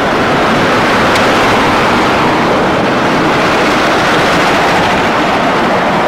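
Loud, steady rushing noise of road traffic, tyres and engines of passing cars blending together with no single pass standing out.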